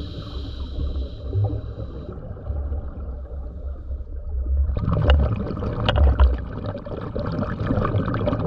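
Scuba diver breathing through a regulator underwater, over a steady low rumble of water on the camera housing. The hiss of an inhalation fades out in the first two seconds, and about halfway through an exhalation sets off a long stream of crackling, gurgling bubbles.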